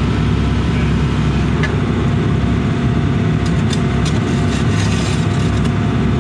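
Case CX80 excavator's diesel engine running steadily, with a scatter of light clicks from about three and a half seconds in.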